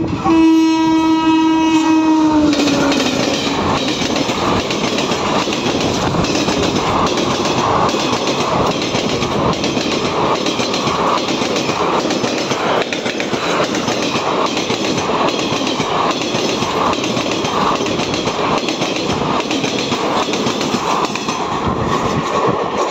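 Indian Railways WAP4 electric locomotive's horn held as it passes at speed, its pitch dropping about two seconds in as it goes by. Its express coaches' wheels then clatter over the wing rails of the station's points in a steady clickety-clack rhythm, ending near the end as the last coach clears.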